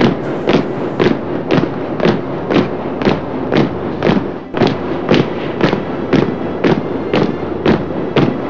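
Marching feet of a column of men stamping in step, a steady beat of heavy thuds about two a second.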